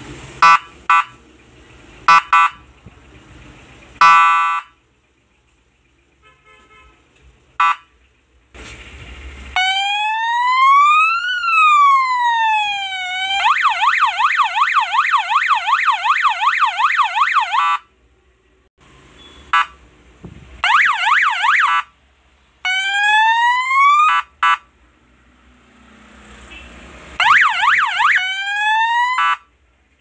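12-volt electronic police siren sounding through its horn speaker as its remote buttons step through the tones: a few short bleeps, a slow wail rising then falling, a rapid warble for several seconds, then three short rising whoops with gaps between.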